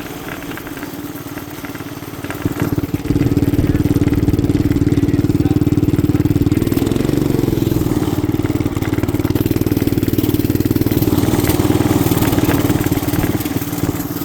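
Small motorbike's 212cc single-cylinder engine running low and uneven, then about three seconds in it opens up and runs loud and steady under throttle. The engine is running poorly in the snow, which one of the riders puts down to snow drawn through the air filter and a little water in the carburettor.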